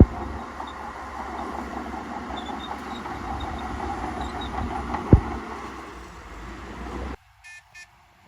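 Shantui bulldozer's diesel engine running under load with a fast rhythmic clatter of its tracks, and two sharp knocks, the second about five seconds in. The sound cuts off suddenly about seven seconds in, followed by two short beeps.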